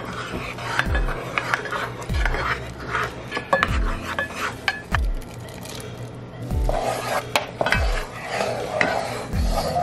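A wooden spoon stirs and scrapes around a small nonstick saucepan of scallions sizzling in melted butter, then works through pearl couscous. Background music with a steady thumping beat plays underneath.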